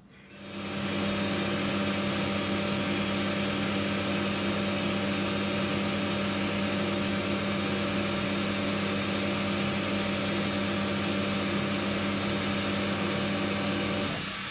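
Metal lathe running steadily at constant speed, an even motor hum that starts about half a second in and drops off near the end.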